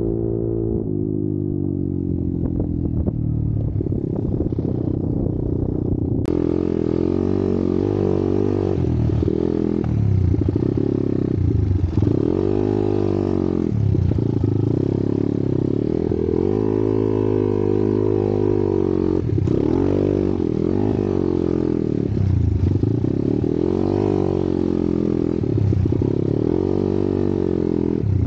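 Trail motorcycle engine revving up and falling back again and again as it is ridden off-road, the pitch rising and dropping every second or two. About six seconds in, the sound changes abruptly at an edit.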